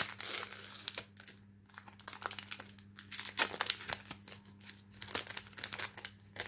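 Foil wrapper of a Duel Masters trading-card booster pack crinkling and tearing as it is pulled open by hand, in irregular crackles, loudest right at the start.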